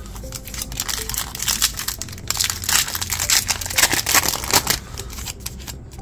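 Foil trading-card pack wrapper of an Upper Deck Blizzard Legacy Collection pack crinkling as it is handled and torn open, the crackle loudest in the middle seconds.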